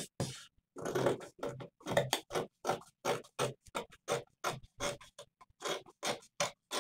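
Dressmaker's scissors snipping through Ankara print cotton fabric, one quick crunching cut after another at about three to four a second, as they work along the armhole curve.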